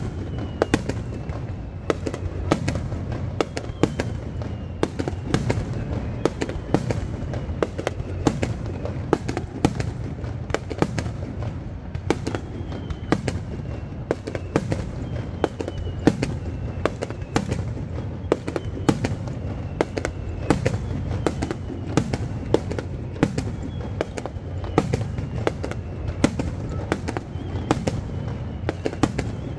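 Fireworks display: aerial shells bursting in a rapid, uneven string of bangs, about two or three a second, over a steady low rumble, with faint falling whistles every few seconds.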